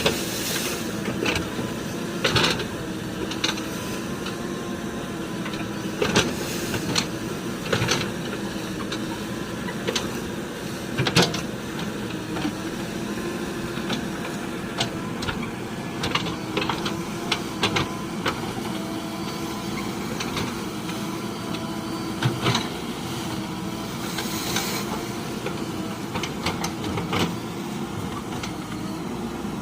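Heavy vehicle's diesel engine running steadily, with frequent short sharp knocks and clanks over it.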